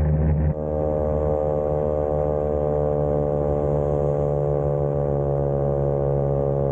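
Vespa scooter engine running at steady revs while riding, with an even, unchanging pitch. The sound changes abruptly about half a second in.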